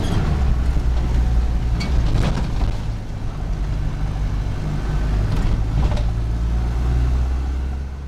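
4x4 engine running steadily under load, heard from inside the cab while driving a rough dirt track, with a few sharp knocks and rattles from the bumpy road.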